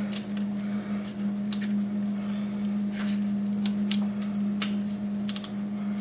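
Scattered clicks and knocks of a socket ratchet working bolts loose on a tractor's underside, over a steady low hum.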